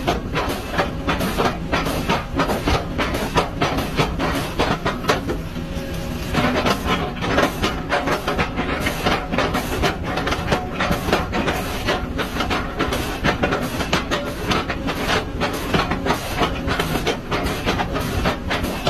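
Continuous rapid mechanical clatter, many clicks or knocks a second, with a briefly softer stretch about five seconds in.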